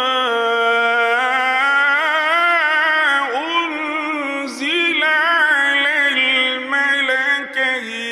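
A male Quran reciter chanting in the melodic mujawwad style, drawing out a long ornamented phrase with wavering, gliding pitch. The phrase breaks briefly about four and a half seconds in, then carries on.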